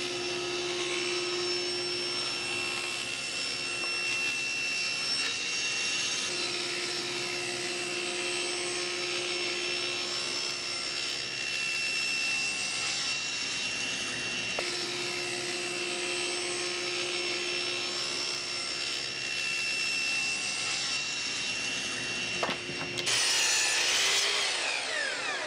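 Table saw running and ripping birch plywood into strips, a steady blade hum under the cutting noise. Near the end a sliding miter saw makes a louder cut and its blade spins down with a falling whine.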